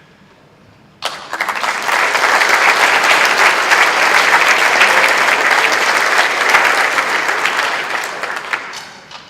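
Audience applauding, starting suddenly about a second in, holding steady, then dying away near the end.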